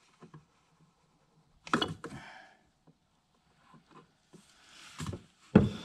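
Mostly quiet work sounds, with a few clicks and knocks: a short clatter about two seconds in, and a sharp knock shortly before the end that is the loudest sound. These are hand-handling noises from working a drencher at the differential fill hole.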